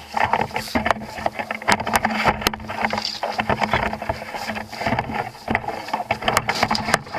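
Irregular knocks and clatters from a smashed microwave oven's loose metal parts being handled, over a steady rushing noise.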